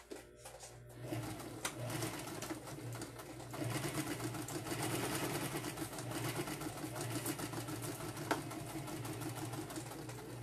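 Electric domestic sewing machine stitching a seam through fabric, its motor and needle running steadily from about a second in and growing louder about three and a half seconds in, with a couple of sharp clicks.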